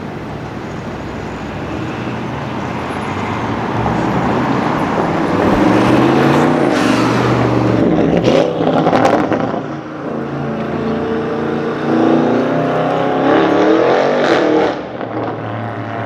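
Audi RS7's twin-turbo V8 accelerating past close by. The engine note builds from a few seconds in, dips briefly, climbs again in rising sweeps and falls away near the end, with a few sharp cracks about halfway through.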